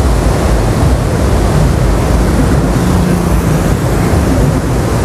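Swollen monsoon Ganga rushing through the gates of Bhimgoda Barrage: a loud, steady noise of churning, turbulent floodwater below the barrage.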